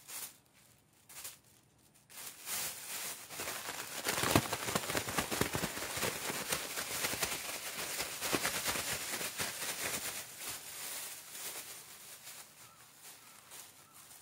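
Thin plastic bag rustling and crinkling as pieces of fish are tossed in flour inside it to coat them. It starts with a few small rustles, becomes a dense crackling about two seconds in, and is loudest in the middle before tapering off.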